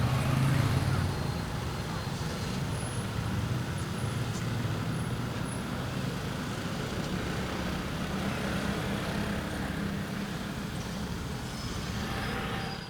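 Slow city street traffic: engines of cars, motorbikes and other vehicles running at low speed in a steady low rumble, a little louder in the first second, cutting off abruptly at the end.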